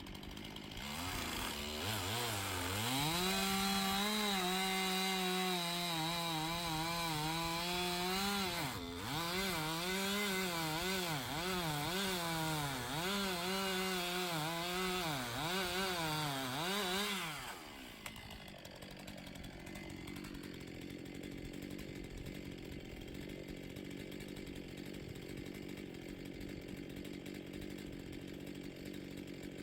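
Chainsaw revved from idle to full throttle and cutting into wood, its pitch dipping again and again as it labours in the cut, with one sharp knock partway through. About 17 seconds in it drops back to a steady idle.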